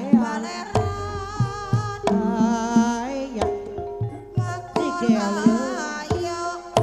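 Live Javanese gamelan music for an ebeg hobby-horse dance: a singer's held, wavering vocal line over sustained gamelan tones, punctuated by sharp kendang hand-drum strokes.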